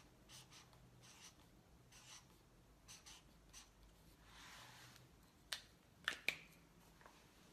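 Faint scratching of a coloured pen on paper in short strokes, with one longer stroke about four seconds in, as a drawing is coloured in. Three sharp clicks come between about five and a half and six and a half seconds in, the last two close together and loudest.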